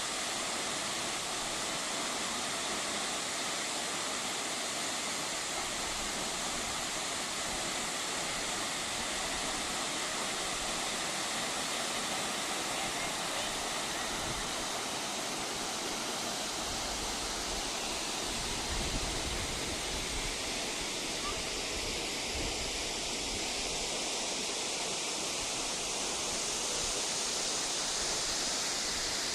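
Large waterfall's falling water rushing steadily.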